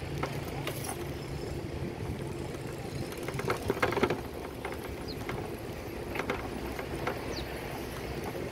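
Outdoor bicycle-ride noise: a steady low rumble with scattered light clicks and knocks.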